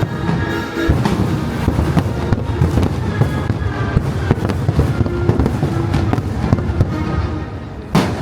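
Fireworks going off in a rapid string of bangs and crackles over loud show music, with one especially sharp bang near the end.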